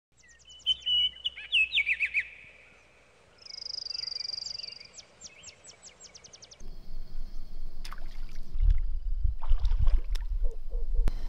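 Birds chirping and calling: quick falling chirps, a buzzy trill, then a run of rapid sweeping notes. About six and a half seconds in, the sound changes to a low rumble with a few splashes and clicks from wading in shallow water.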